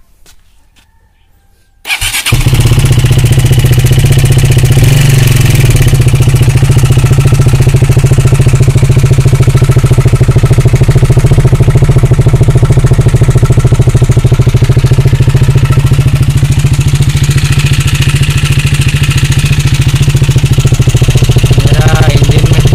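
KTM RC 390's single-cylinder engine starting about two seconds in, then idling loud and steady through a new Akrapovic slip-on exhaust.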